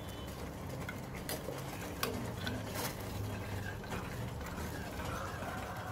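Steel measuring spoon clinking and scraping in a small steel bowl while gelatin is stirred and melted over a double boiler, with a few sharp clinks over the steady bubbling of water boiling in the pot beneath.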